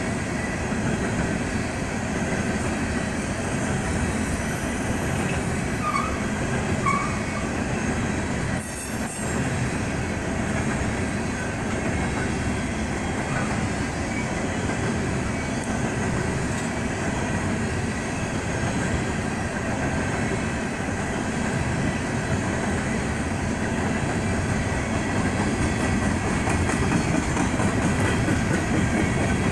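A BNSF coal train's freight cars rolling steadily past, a continuous rumble of steel wheels on rail. The sound cuts out for a split second about nine seconds in and grows slightly louder near the end.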